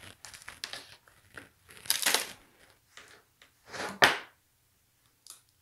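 Handling noises: a few short rustling, scraping swishes, then a sharp click a little after four seconds in.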